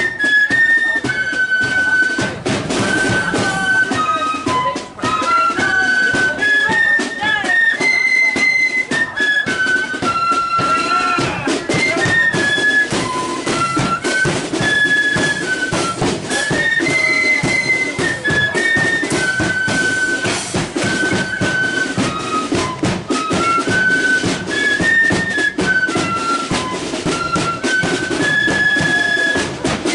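Marching flute band playing a tune: the flutes play the melody together in stepping notes, over a steady beat of drums.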